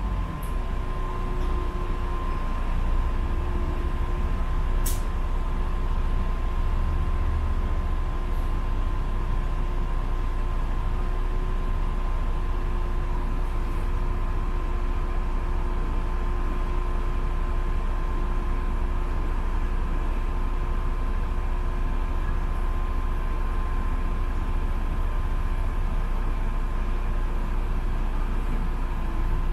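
Inside a running city bus: a steady low rumble of the engine and road, with two steady whining tones, one high and one lower, and a single sharp click about five seconds in.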